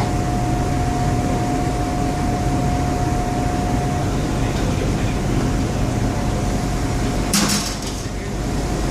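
A boat's engine drones steadily under a haze of wind and water noise, with a steady higher tone that fades out about four seconds in. A short burst of rushing noise comes about seven seconds in.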